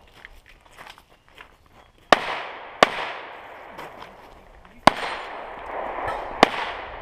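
Pistol shots fired during a stage of a practical shooting match: two shots less than a second apart, then after a pause two more spaced about a second and a half apart, each with an echo ringing after it. A few faint clicks come before the first shot.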